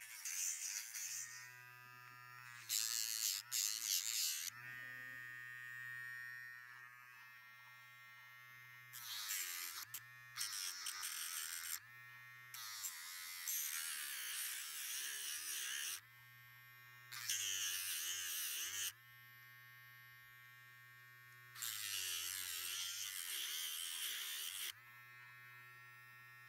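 Rechargeable pet nail drill running with a steady motor whine, its grinding head sanding a dog's nails in about six separate stretches of one to three seconds, each louder and harsher than the idle running between them.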